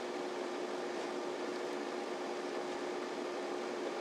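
Steady machine hum and hiss, like a fan or appliance running, with one steady low tone held throughout.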